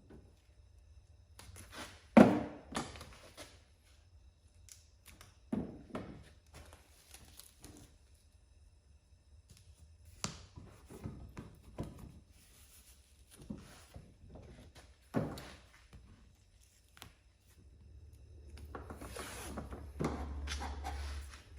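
Handling noises from sticking vinyl tape onto a cracked vinyl tractor seat: several separate knocks and thumps, the loudest about two seconds in, and a longer stretch of rustling near the end.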